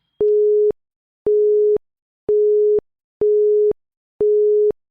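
Electronic countdown-timer beeps: five identical half-second beeps at one steady pitch, about one a second, each starting and stopping with a click.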